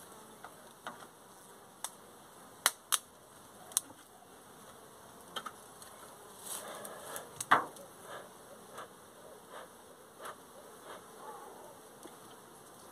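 A few sharp clicks and knocks of gear being handled, the loudest about halfway, then a bee smoker's bellows worked in a steady run of short airy puffs, about one every two-thirds of a second, smoking the hive to calm the bees before it is opened.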